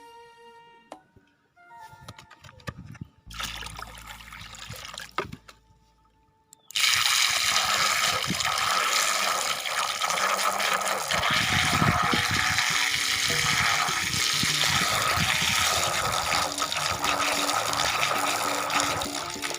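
Water rushing and splashing. It starts suddenly about seven seconds in and keeps up steadily, after a few quieter knocks and rustles.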